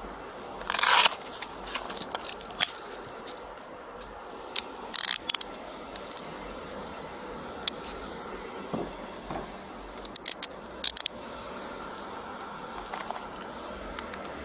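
Metal handcuffs being snapped and ratcheted onto a person's wrists: scattered sharp metallic clicks and rasps, the longest about a second in and more in clusters near the middle and about two-thirds through.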